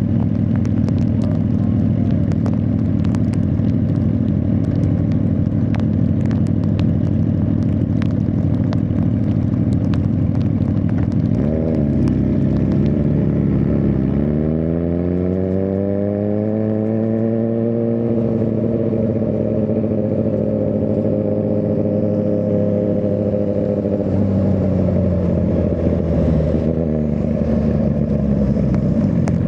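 Suzuki GSX-R1000R's inline-four engine under way. It runs steadily, dips about halfway through, then revs climb smoothly, hold steady for several seconds and fall off near the end.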